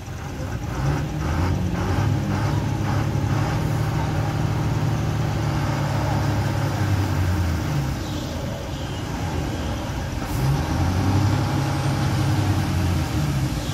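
Diesel engine of a heavily loaded multi-axle lorry running steadily under load as the truck crawls slowly around a hairpin bend, with a deep, low note; it eases off about eight seconds in and picks up again about two seconds later.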